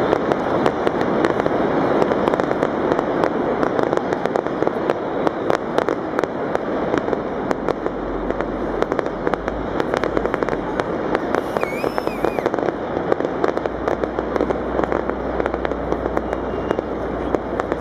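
Fireworks crackling and popping in a dense, rapid stream of small sharp reports, without a break.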